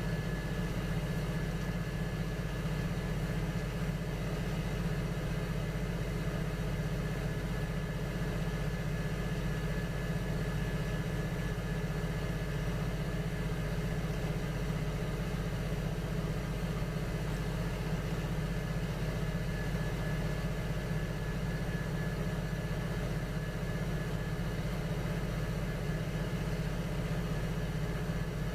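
Electric potter's wheel motor running at a steady speed, a constant hum with a thin high whine.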